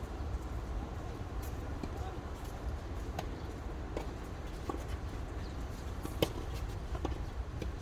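Outdoor tennis court ambience: a steady low rumble with scattered light clicks and one sharp knock about six seconds in, under faint far-off voices.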